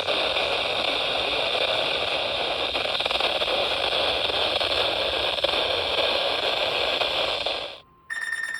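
Steady hiss of static from a weather radio receiver on an open channel after a broadcast message. It cuts off suddenly near the end, and after a brief silence a faint steady high tone begins.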